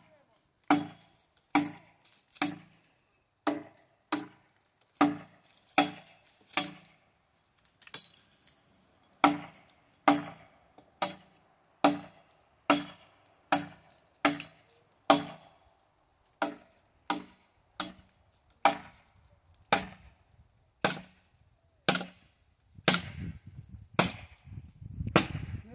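Machete chopping at a dry walnut branch: steady sharp blows of the blade into the hardwood, about one a second, each with a brief ring. Near the end a rougher low rustling noise joins the strokes.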